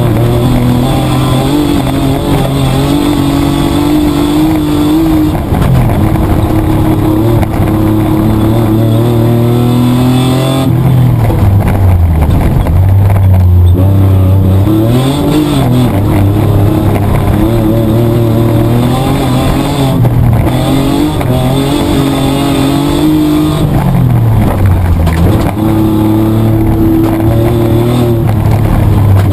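Petrol engine of a Mitsubishi Triton heard from inside the cabin while it is driven hard on a rally stage, the revs climbing and falling repeatedly with sharp drops in pitch a few times, as at lifts off the throttle and gear changes.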